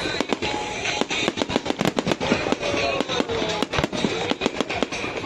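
Fireworks display going off in rapid succession, a dense run of sharp cracks and bangs several a second, with music playing alongside.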